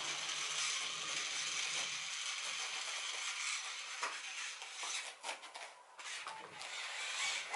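Steady hiss, then from about four seconds in a scattered run of light clicks and taps as a toddler handles a small plastic toy police car on a foam play mat.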